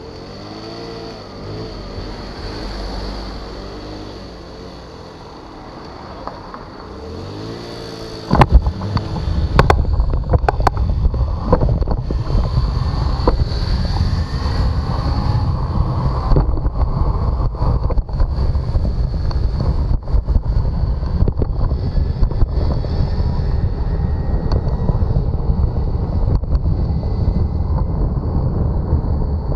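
Road traffic at a crossing: passing car engines with a rising and falling pitch. Then, about eight seconds in, a sudden loud, steady low rumble of wind buffeting the microphone of a camera on a moving bicycle takes over, with scattered sharp knocks.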